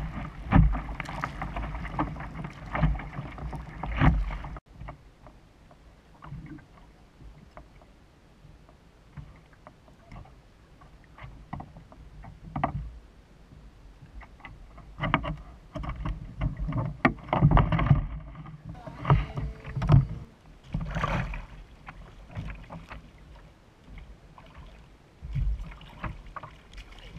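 Sea water rushing and splashing around a fishing kayak as it paddles out through breaking surf, with wind on the microphone. The surf noise cuts off suddenly a few seconds in, giving way to quieter, scattered splashes and knocks on and around the kayak.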